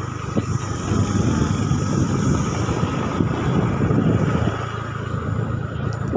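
Motorcycle engine running steadily while riding along, heard from on the bike with road and wind rush.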